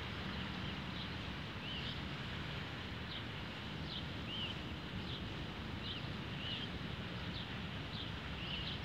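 Pukeko chicks peeping: short, high chirps repeated about once or twice a second over a steady background noise.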